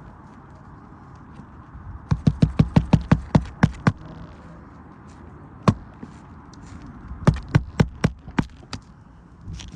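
A hammer striking on an asphalt shingle roof. There is a quick run of about ten sharp blows, a single blow, then about half a dozen more.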